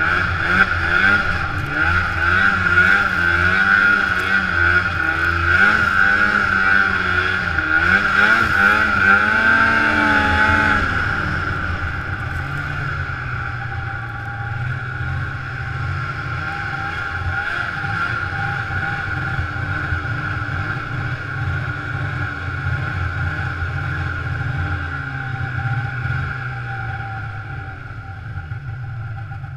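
Snowmobile engine revving up and down as the sled rides over snow, with a steady high whine throughout. About eleven seconds in, it settles to a lower, steadier run as the sled slows.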